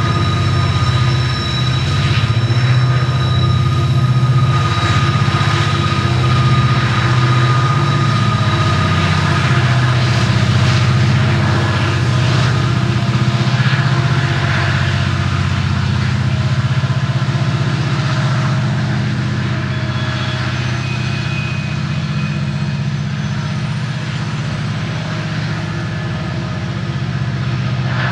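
Montana Rail Link diesel locomotives working a freight train of grain hopper cars: a steady low engine drone over the rumble and rattle of wheels on rail. A thin high whine sits over it for the first several seconds, and the sound eases slightly near the end.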